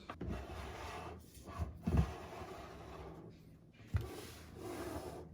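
Parts of a stainless steel coffee maker being handled and fitted together: light rustling and scraping, with a dull knock about two seconds in and a sharp click about four seconds in.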